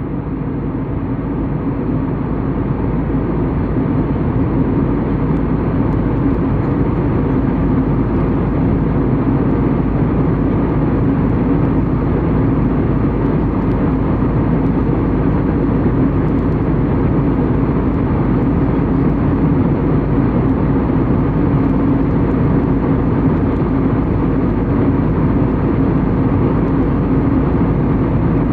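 Passenger airliner in flight heard from inside the cabin: a loud, steady drone of engine and airflow noise, mostly low rumble with a steady hum through it.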